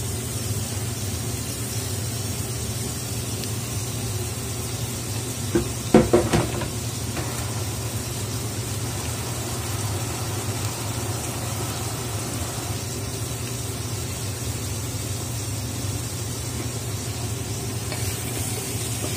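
Food sizzling in a cooking pot, a steady hiss, with a quick run of utensil knocks against the pot about six seconds in.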